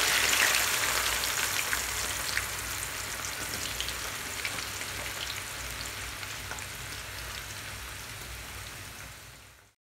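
Sliced red onions frying in hot oil in a stainless steel pan: a dense sizzle with fine crackling, loudest just after the onions go in and slowly settling lower. The sound cuts off abruptly near the end.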